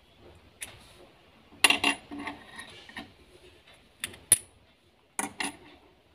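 Small metal parts of an electrical switch clicking and clattering as a nut is fitted back into the switch during reassembly: a few separate clicks, a louder short clatter about a second and a half in, a sharp click a little after four seconds and two more near the end.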